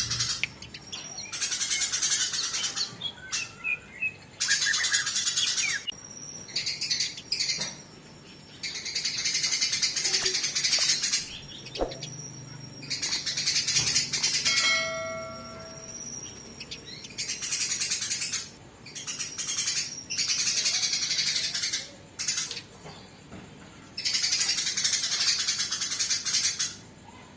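Eurasian tree sparrows in a fight, giving harsh, dense chattering in repeated bursts of a second or two with short gaps between. About halfway through there is a brief, lower pitched call.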